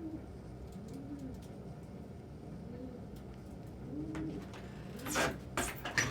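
Domestic pigeons cooing, several soft low rising-and-falling coos in turn. A few short, loud, noisy sounds come near the end.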